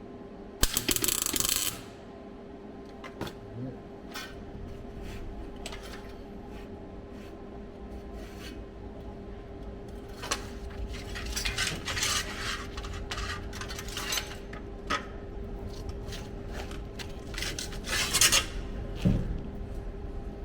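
Metal clatter of steel repair panels and hand tools being handled and shifted: scattered clinks and scrapes, with a loud burst of rattling about half a second in and another short one near the end, over a steady hum.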